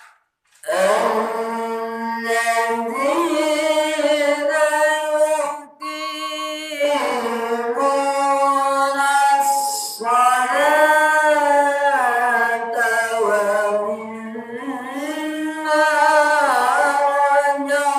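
A solo voice singing or chanting in a melismatic style: long held notes that waver and bend in pitch, in phrases several seconds long, with a short break about six seconds in.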